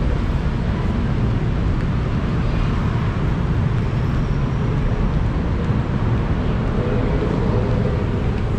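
Steady city traffic noise: a constant low rumble from many road vehicles, with no single event standing out.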